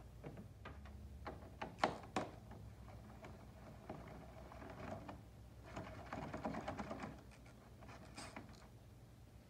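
Hand tool clicking and knocking in the engine bay while the air intake box is unfastened. A few sharp knocks come about two seconds in, then a stretch of fast, light clicking around six seconds in.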